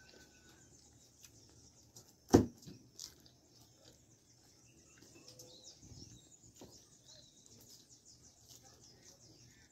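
Quiet mukbang eating: faint chewing with one sharp click about two seconds in, over faint high chirping in the background.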